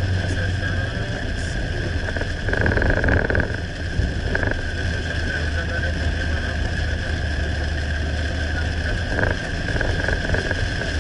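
Steady road and engine noise inside a moving car: a low drone with a thin, steady high tone above it. It swells louder for about a second, roughly two and a half seconds in.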